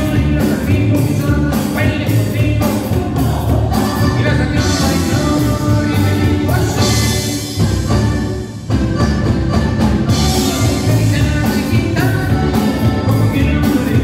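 Cumbia band playing live through the PA, with singing over a steady beat and a heavy bass. The music drops out briefly about eight and a half seconds in, then comes back in.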